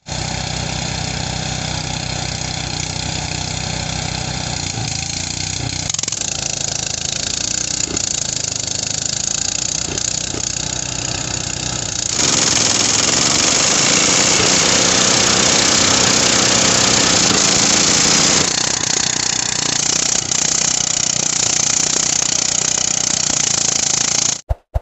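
Engine-driven rice threshing machine running steadily while bundles of rice stalks are fed into its drum, a rushing, hissing noise of straw and grain over the engine's hum. The sound jumps abruptly in level and tone about six, twelve and eighteen seconds in, loudest and hissiest in the middle stretch.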